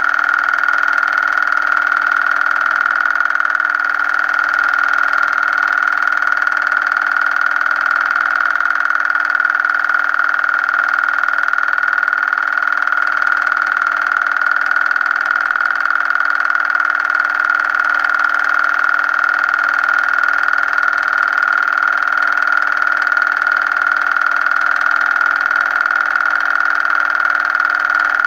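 Film projector running: a steady mechanical whir with a constant high whine, unchanging throughout.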